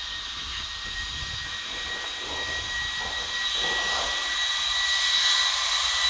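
Jet whine from an Airbus A330-300's Pratt & Whitney turbofans at taxi power: a steady high two-note whine over a jet hiss, growing louder as the airliner comes closer.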